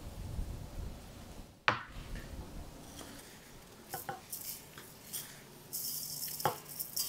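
Salt sprinkled by hand from a small clay bowl onto raw chicken in a stainless steel bowl: a fine, high hissing patter of falling grains, strongest in the last second or so. A sharp knock about a second and a half in is the loudest sound, with a few lighter clicks later.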